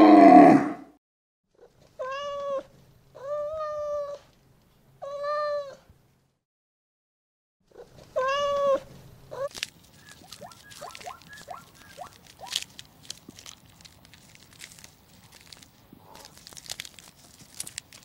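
A loud, deep groaning call ends about a second in, then four short mewing calls of even pitch, three close together and one more after a pause. Faint scattered clicks and scuffs follow, like hooves on dry ground.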